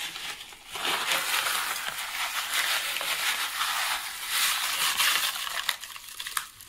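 Dry cubed stuffing mix pouring out of its bag into a crock pot, a steady dry rustle that starts about a second in and stops near the end.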